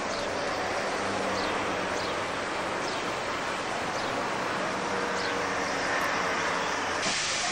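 Class 52 steam locomotive 52 3879 standing in steam: a steady hiss with a low hum under it and a few short high chirps over it. Near the end a louder rushing hiss cuts in.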